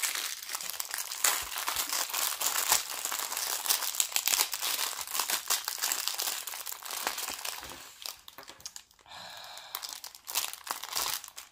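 Thin clear plastic bags crinkling and rustling as the bagged tools of a diamond-painting kit are handled and unpacked. The crinkling dies down briefly about three-quarters of the way through, then starts again.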